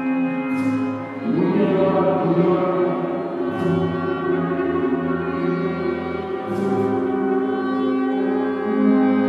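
Chamber orchestra playing slow, sustained chords of a contemporary piece, several notes held together; about a second in the texture thickens into a denser cluster. Short high swishes recur about every three seconds over the held notes.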